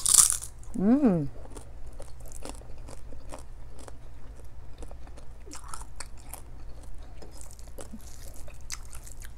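Close-miked chewing: wet mouth smacks and small clicks as a person chews a mouthful of rice and Spam eaten by hand. A short falling 'mm' comes about a second in.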